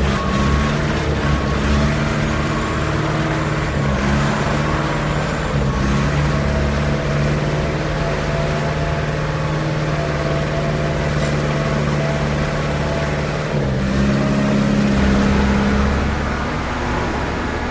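Concrete mixer running steadily with a continuous low mechanical hum. About thirteen seconds in, its note shifts and grows a little louder for a few seconds.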